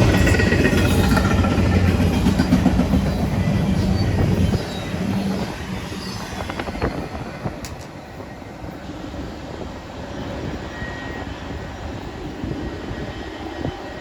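Freight train cars rolling past, with wheels clattering over the rails. A loud low drone under the clatter drops away about four and a half seconds in, and the train noise then goes on more quietly.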